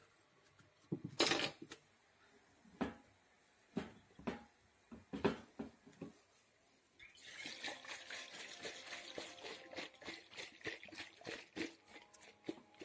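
Objects knocked and set down on a tiled kitchen counter, several separate clatters. About seven seconds in, a steady rushing, hissing noise starts and runs on.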